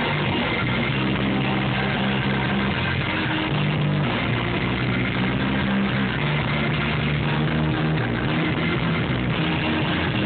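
Live band playing through an outdoor stage PA, with guitar over a line of held bass notes that change every second or two.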